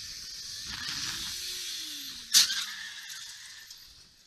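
Wind rushing over a motorcycle-mounted camera, with the engine note rising and then falling away. One sharp knock comes about two and a half seconds in.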